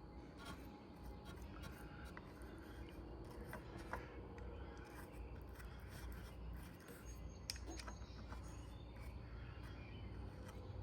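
Faint small clicks and rubbing from hands working grease onto the garage door opener's drive gears, over a low steady hum.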